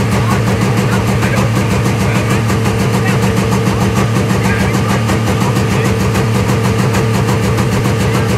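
Ford modular V8 engine idling steadily, with no revving.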